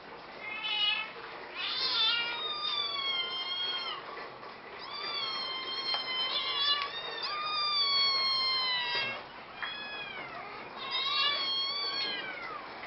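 Cats meowing again and again: drawn-out meows that rise and fall in pitch, some overlapping one another.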